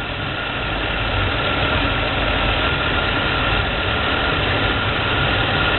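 Buick 3800 V6 engine idling steadily with its cooling system being air-bled.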